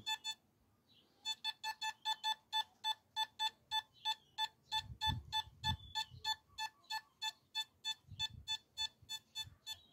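Nokta Makro Simplex+ metal detector giving a rapid run of single-pitched target beeps, about four a second, starting about a second in. The beeps vary in strength as a George III halfpenny is held at the edge of the detector's range, around 11 to 12 inches, where the signal is turning faint.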